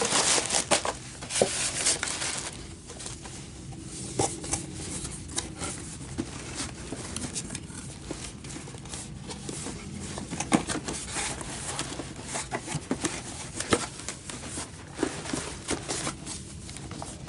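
Paper and plastic mail packaging rustling and crinkling as it is handled, densest in the first two seconds, then scattered light clicks and taps as items are moved about. A faint low hum sits underneath.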